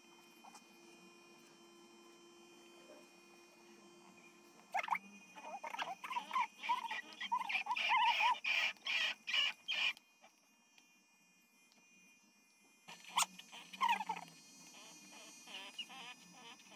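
An electric pet clipper hums steadily for the first few seconds. Then a small dog, a Shih Tzu being shaved, gives a run of high, wavering whines and grumbles about five seconds in, and another short burst about thirteen seconds in, protesting at the grooming.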